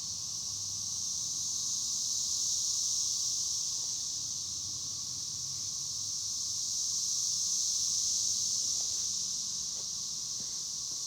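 Chorus of cicadas buzzing in a continuous high-pitched drone, swelling a little and easing back twice.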